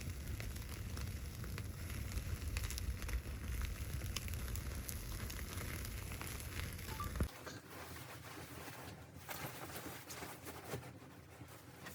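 Wood fire crackling with many small pops over a low rumble. About seven seconds in, the sound cuts off abruptly to a quieter stretch of scattered light ticks and taps.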